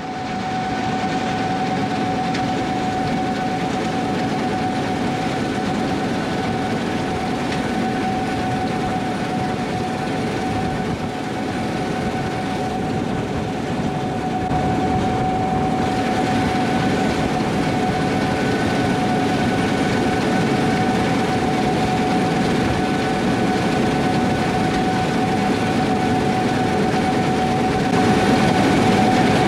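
Gleaner S78 combine running steadily while harvesting wheat and unloading on the go into a semi: a continuous heavy machine drone with a constant whine through it, growing a little louder about halfway through and again near the end.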